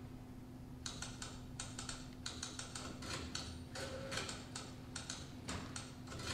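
Rapid, irregular mechanical clicking and clattering like typewriter keys, starting about a second in and running on with a few short pitched tones mixed in, part of the recorded performance score.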